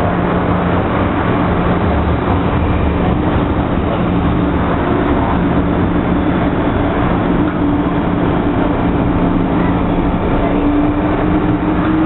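MTR M-Train electric multiple unit running between stations, heard from on board: a steady rumble of wheels on track with a low, even motor hum.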